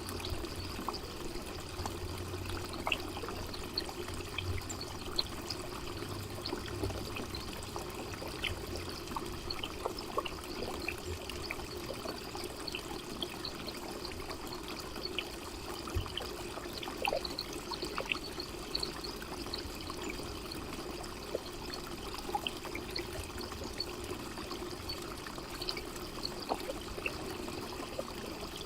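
Garden fountain trickling and splashing water steadily, with small drips and splashes scattered throughout.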